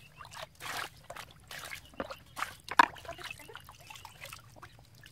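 Raw tripe and intestines being handled in a basin of water: irregular sloshing, splashing and dripping, with one sharp knock nearly three seconds in.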